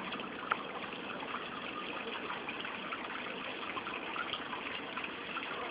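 Steady rushing outdoor background noise with a few faint ticks, one slightly sharper about half a second in.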